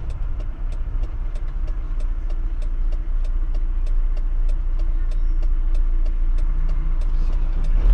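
Car turn-signal indicator clicking steadily, about three clicks a second, over the low rumble of a Fiat Fiorino van's engine idling, heard inside the cab.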